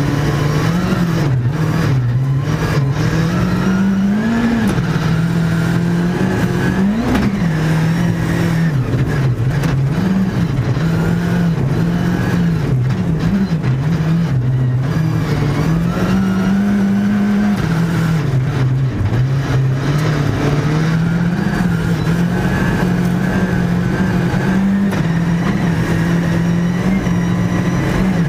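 Škoda Fabia R5 Evo rally car's turbocharged 1.6-litre four-cylinder engine heard from inside the cockpit, driven hard with its revs rising and falling again and again through gear changes.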